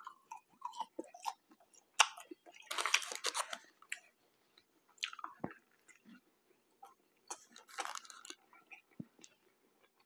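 A man eating McDonald's fries and a McChicken sandwich: chewing and biting, with denser crunching about two seconds in and again about seven seconds in.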